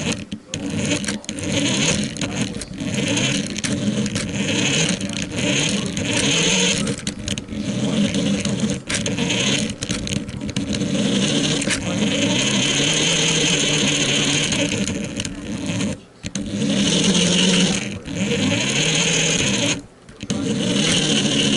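Small toy RC car's electric motor and plastic gearbox whirring as it is driven, the pitch rising and falling with the throttle. It cuts out briefly twice near the end.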